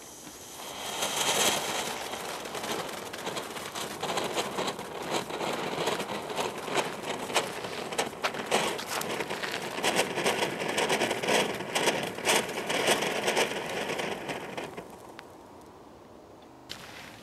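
Small Category 1 firework fountain: the fuse catches and about a second in the fountain starts, spraying sparks with a steady hiss full of sharp crackles. It dies away about fifteen seconds in.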